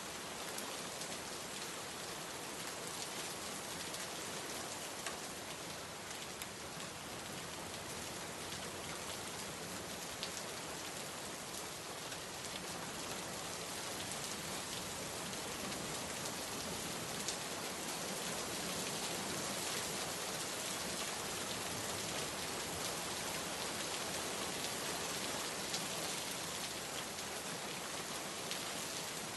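Steady rain falling, a continuous hiss with scattered individual drop ticks, growing slightly heavier in the second half.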